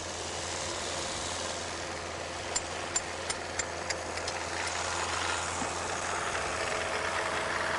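Car engine idling steadily on a stand while a hammer taps a punch into its spin-on oil filter about six times in quick succession, knocking a hole in it. After the taps a hiss builds as the oil, pumped round under pressure by the running engine, sprays out of the hole.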